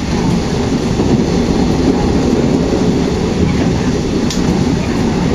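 Passenger train running steadily, a continuous low rumble heard from inside the carriage, with a faint click about four seconds in.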